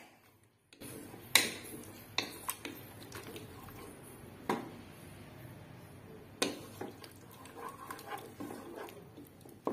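A spatula stirring and scraping vegetables in an aluminium pressure cooker, starting about a second in, with several sharp knocks against the pot. Under it runs a steady sizzle of the vegetables frying in oil.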